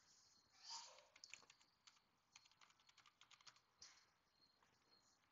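Faint computer keyboard typing, with quick, irregular key clicks, as a job name is typed in. About a second in there is a brief, louder rush of noise.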